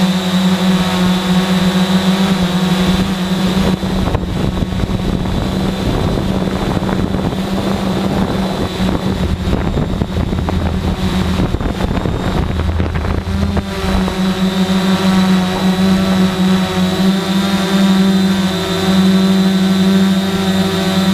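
Quadcopter drone's electric motors and propellers giving a steady high buzzing hum, heard on the drone's own microphone. For about ten seconds in the middle, gusty wind noise on the microphone partly covers the hum.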